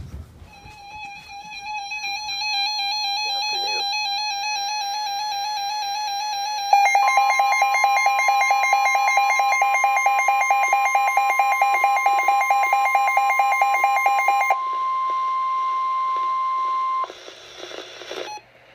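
NOAA Weather Radio 1050 Hz warning alert tone: a steady single pitch that comes on about seven seconds in and holds for about ten seconds, the signal that a warning message follows. Under it a weather-radio receiver's warbling electronic alarm sounds from the start and switches to rapid pulsed beeping when the tone comes on, stopping a few seconds before the tone ends.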